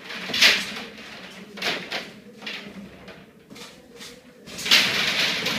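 Coil of PEX underfloor-heating pipe being unrolled by hand, the plastic pipe scraping and rustling across foil-faced insulation board in several short sweeps, the loudest about half a second in and a longer one near the end.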